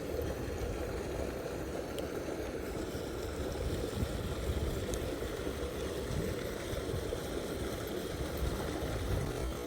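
Steady low rumbling rush of a mountain stream's flowing water.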